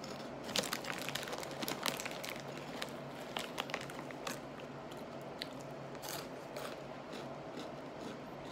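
A person biting and chewing Brim's oven-baked crunchy cheese curls: a run of dry, brittle crunches, thickest in the first few seconds and thinning out toward the end as the mouthful breaks down.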